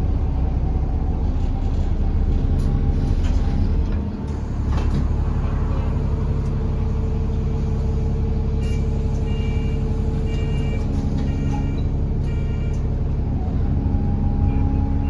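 A London bus running, heard from inside. The engine and drivetrain make a steady hum. About two-thirds of the way through comes a run of short, high electronic beeps, a few each second.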